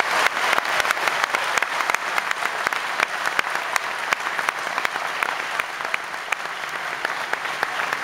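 Audience applauding, many hands clapping at once, easing off slightly in the second half.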